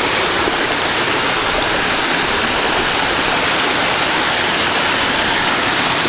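Small mountain waterfall cascading over rocks: a steady, even rush of falling water.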